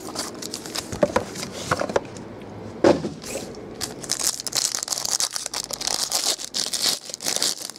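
Hands opening a cardboard trading-card box, with clicks and one sharp knock about three seconds in, then a foil trading-card pack crinkling and tearing open.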